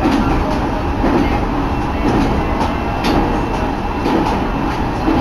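Mito Line train running along the track: a steady rumble with faint clicks about once a second.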